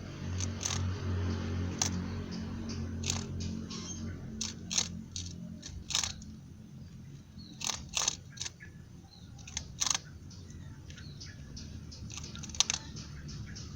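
Rabbit gnawing on a red brick wall: irregular sharp crackling crunches, like crackers, as its teeth scrape off bits of brick, which the owners take for the rabbit looking for calcium.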